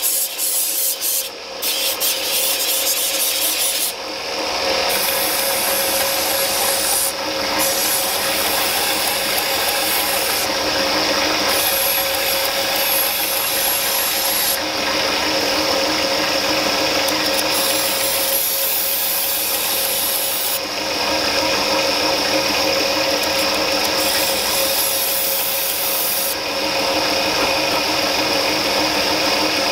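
Belt grinder running a narrow abrasive belt, with a steel knife blade held against it to round the spine and choil: a steady whine under a rasping grind that changes in texture every few seconds as the blade is moved on the belt.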